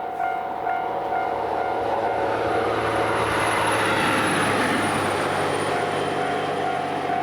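A Japanese level-crossing warning bell rings in a rapid, even rhythm while the Ozora diesel limited express runs over the crossing. The rushing noise of the passing train swells to its loudest about halfway through and partly drowns the bell, which comes back clearly near the end.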